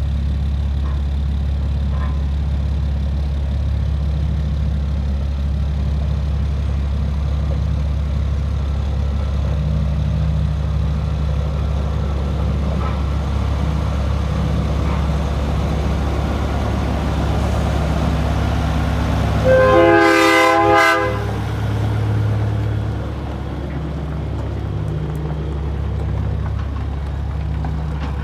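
Large diesel engine running steadily with a low drone, and about two-thirds of the way through a loud horn sounds for about a second and a half.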